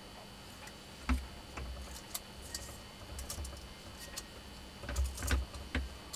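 Irregular light clicks and small knocks from hand-rewinding a POWER MAXX 500 W angle grinder armature: hands handling the copper magnet wire and turning the armature in its winding jig, with a cluster of louder knocks near the end.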